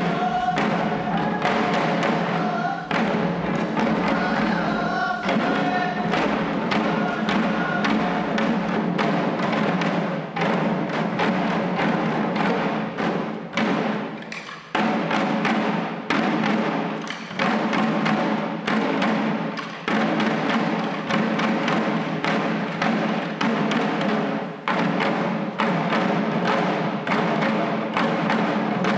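Shishi-odori deer dancers beating the small taiko drums slung at their chests in a quick, steady rhythm, with voices chanting over the drumming in the first few seconds. The drumming dips briefly about halfway, then carries on.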